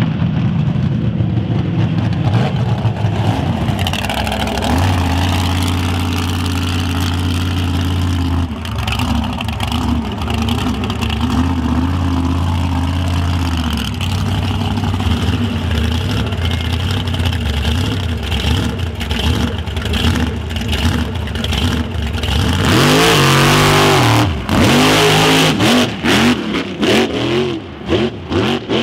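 Mega truck engines running hard on a short course, holding a steady pitch for a few seconds at a time, then revving up and down loudest near the end.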